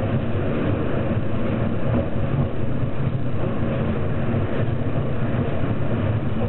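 Steady low rumble of a rail car running along its track, heard from on board.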